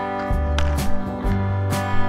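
Background music led by a strummed acoustic guitar, with a bass line and percussive hits.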